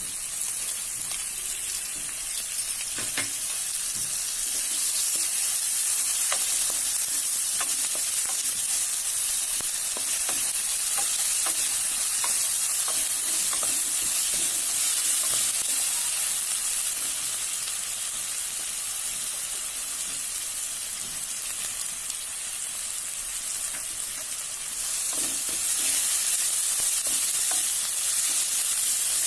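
Hot oil sizzling in a pan as food fries, with scattered light taps and scrapes of a spatula stirring it. The sizzle gets louder near the end.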